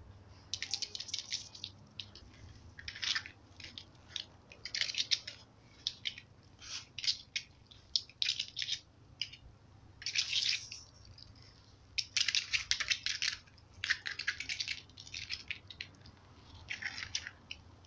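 Kittens' paws and claws scrabbling and scratching on a plastic sheet as they play: irregular crinkly scratching noises, some brief and some lasting about half a second.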